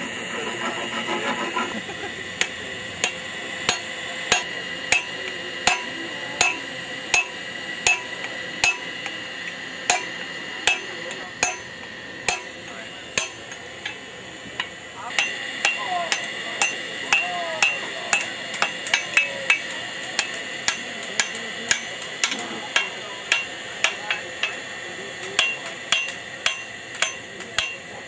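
Strikers' sledgehammers striking hot high-carbon steel on an anvil in a steady rhythm, about two blows a second, each with a short metallic ring. The blows stop for about two seconds midway, then start again.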